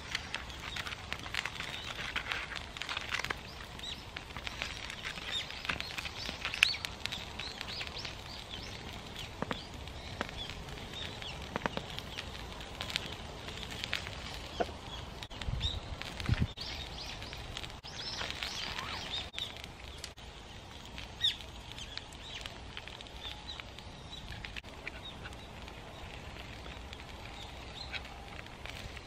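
Small wood fire crackling under a cooking pot, with rustling of a plastic bag handled beside it. There are a couple of soft low thumps about halfway through.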